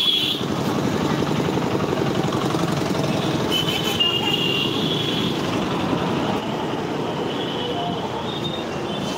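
Steady rumble of riding a motorized two-wheeler through street traffic: engine, road and wind noise on the microphone. A thin high whistling tone comes and goes over it a few times.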